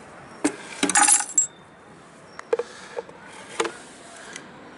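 Shards of broken sheet glass clinking and tinkling as they are cleared off a wooden board, with a dense burst of clinks about a second in, then a few single clinks and knocks.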